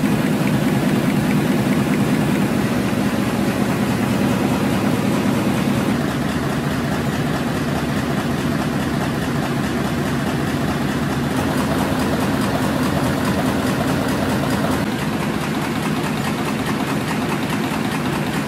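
Goss Community web offset newspaper press running at production speed: a loud, steady mechanical din of rollers and printing units, a low hum under a fast, even clatter. It eases slightly about six seconds in.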